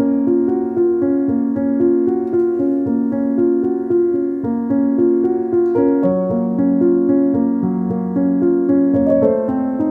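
Background instrumental music: a keyboard playing a gentle melody over chords, with a steady flow of notes.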